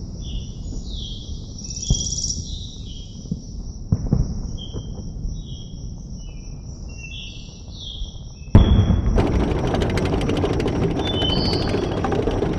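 Birds chirping over a low outdoor rumble. About eight and a half seconds in, a loud, rapid mechanical clattering starts suddenly and keeps going: a tank's engine and clanking tracks.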